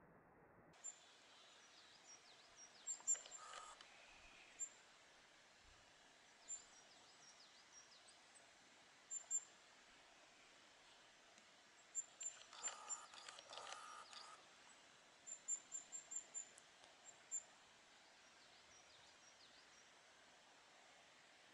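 Faint, very high, thin call notes of a kinglet (Regulus), given singly and in short quick runs of several notes. Twice a lower, rougher sound comes in briefly.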